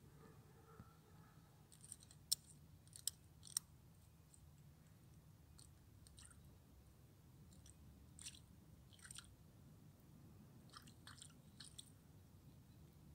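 Common raven pecking at thin ice in a puddle with its beak, making sharp crunching cracks in irregular bunches. Three loud cracks come a couple of seconds in, with more bunches later.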